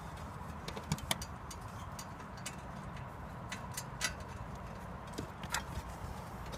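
Small, irregular clicks and taps of a plastic junction-box cover being handled and pressed into place on the back of a solar panel, over a steady low background rumble.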